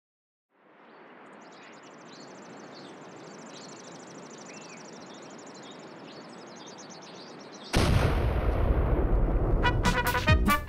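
Faint outdoor country ambience with a fast high-pitched trill and a few scattered chirps, then about three-quarters of the way in a sudden loud explosion that goes on rumbling. Near the end a brass-and-drums band tune starts.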